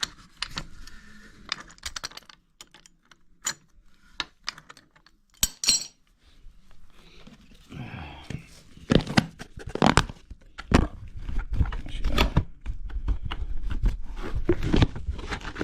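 Clinks, knocks and scrapes of metal plumbing tools and pipe fittings being handled: scattered clicks at first, busier knocking and scraping in the second half.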